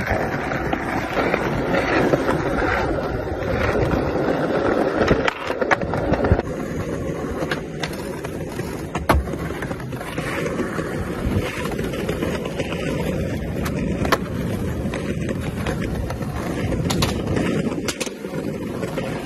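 Skateboard wheels rolling over stone paving, a steady grinding rumble broken by several sharp clacks as the board is popped and lands.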